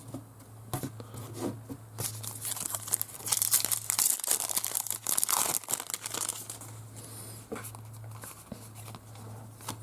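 Trading cards and a card-pack wrapper being handled: crinkling, tearing and papery rustling, busiest in the middle few seconds, over a faint steady low hum.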